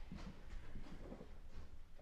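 A few faint, irregular knocks and clicks in the first second and a half, then quiet room hum.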